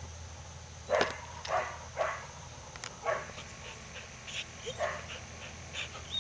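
A dog barking: several short, single barks, spaced unevenly.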